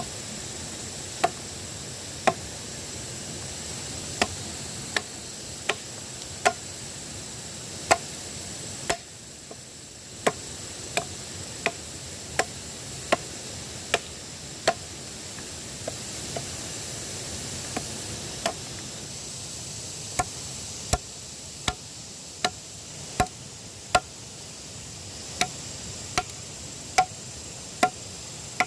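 Repeated sharp chopping strikes, roughly one a second, with a short break about nine seconds in. A steady high insect buzz runs underneath.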